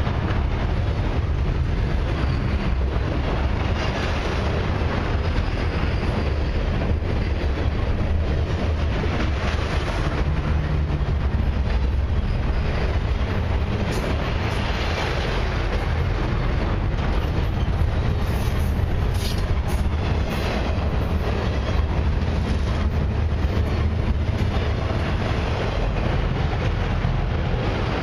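Flatcars of an Expressway intermodal train loaded with highway semi-trailers rolling past close by: the steady, low noise of steel wheels running on the rails, with a few brief high ticks from the wheels partway through.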